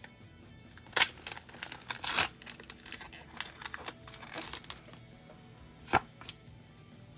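A foil Pokémon booster pack wrapper being torn open and crinkled, with sharp rips about a second in, around two seconds, and near six seconds. Faint background music underneath.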